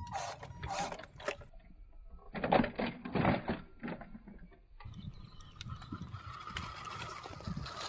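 Small 1:12 RC off-road truck's electric motor and gearbox grinding and clicking as it climbs a dirt slope, with a loud clatter about halfway through as it tumbles onto its side. Near the end the sound changes abruptly to a second RC car's motor and gears running steadily with a faint high whine.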